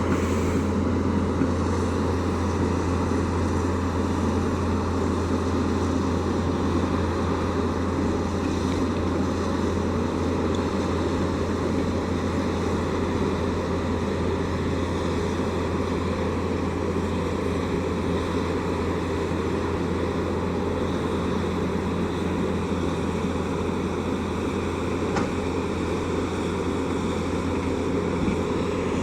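Tata Hitachi excavator's diesel engine running steadily with a constant low hum.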